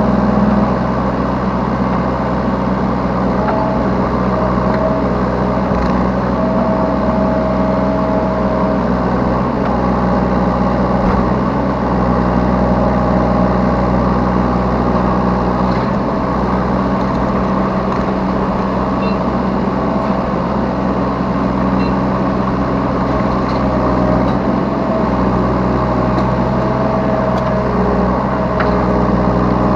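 Yanmar B3 Sigma mini excavator's diesel engine running steadily under work, with a higher whine that comes and goes every few seconds.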